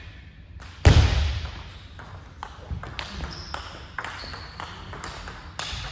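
Table tennis rally: the ball clicking off the bats and bouncing on the table in a series of sharp ticks, with a loud thump about a second in. Two brief high squeaks come midway.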